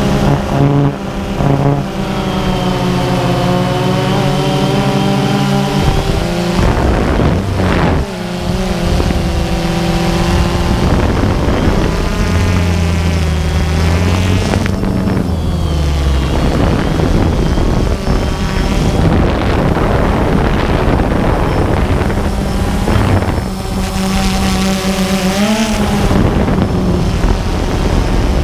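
DJI Phantom 2 quadcopter's motors and propellers whining in flight, heard from the camera mounted on it, several pitches gliding up and down as the motor speeds change, over a rushing noise.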